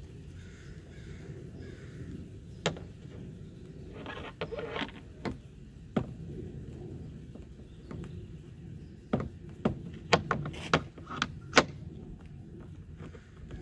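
Sharp plastic-and-metal knocks and clicks as a Porsche 996 Turbo's rear spoiler wing is set down onto its mounting rams and seated: a few separate knocks in the first half, then a quick run of sharper clicks in the last third.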